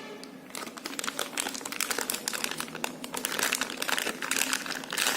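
Packaging crinkling and crackling as it is handled and opened to take out a small accessory.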